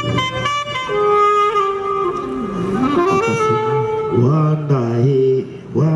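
The live band's lead instrument plays a melodic line of held notes stepping up and down. About four seconds in, a man's voice comes in over the music, sliding in pitch.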